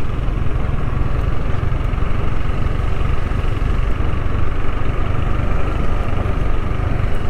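Motorcycle engine running at a steady pace while riding, under a strong low rumble, with a faint steady high note above it.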